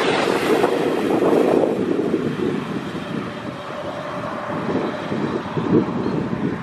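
Wind buffeting the microphone in loud, gusty rushes. Behind it, a faint steady vehicle hum comes in about two seconds in.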